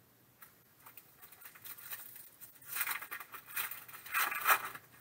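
Foil trading-card pack wrapper being crinkled and torn open by hand, in crackling bursts that build up, the loudest near the end.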